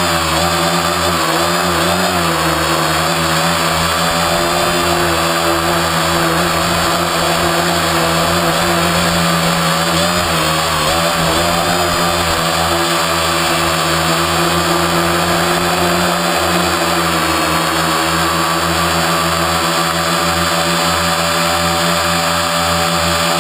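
Quadcopter's electric motors and propellers running steadily as a loud buzzing whine made of several pitches together. The pitch wavers slightly a few times as the throttle shifts.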